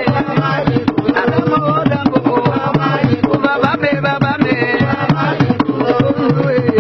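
Idoma traditional drum ensemble playing a fast, dense rhythm, with low drum tones switching back and forth between two pitches.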